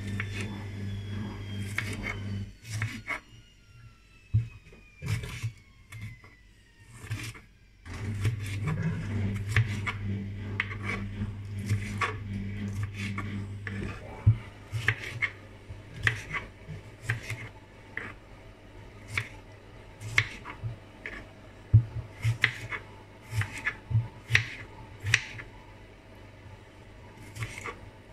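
Kitchen knife slicing tomatoes on a wooden chopping board: irregular knocks of the blade on the board, coming about one to two a second in the second half. A low hum is heard near the start and again in the middle.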